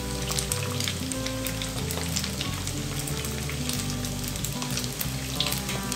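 Sticky-rice lemper rolls deep-frying in hot oil in a steel pot: a steady sizzle full of fine crackling, with a spatula moving in the oil. They are still frying until their outsides dry enough to turn without sticking.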